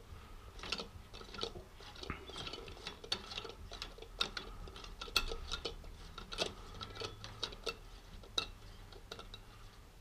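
Light, irregular metallic clicks and ticks of the steering-stem lock nuts being threaded on by hand at the top of the triple clamp.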